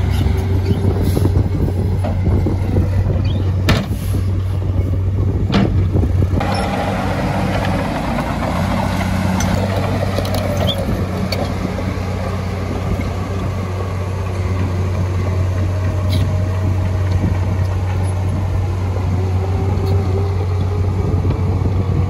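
Heavy construction machine's diesel engine running steadily with a low drone, over it a whine that slowly shifts up and down in pitch. A few sharp metallic clanks come about four to six seconds in.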